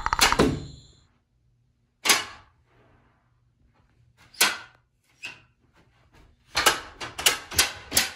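Hands banging on wooden louvered doors: single sharp blows about two and four and a half seconds in, then a quick run of five blows near the end. A brief rapid rattle comes at the very start.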